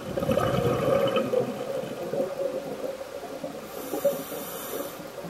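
Scuba diver breathing through a regulator underwater: a burst of exhaled bubbles burbling for the first second or so, then a hissing inhale about four seconds in.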